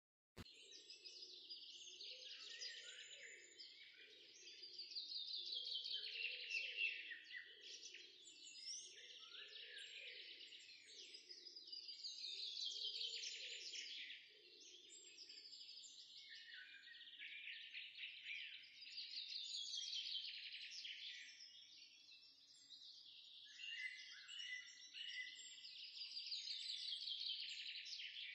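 Faint birdsong: bursts of fast chirping trills that fall in pitch, recurring about every seven seconds, over a faint low pulsing during the first half.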